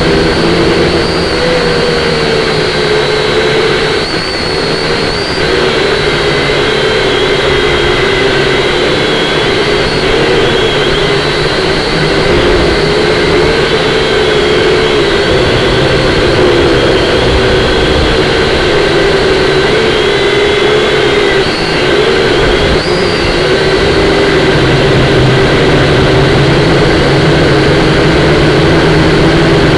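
Syma X5C-1 quadcopter's motors and propellers whining steadily, the pitch wavering up and down as the throttle changes against the wind, over a rumble of wind noise.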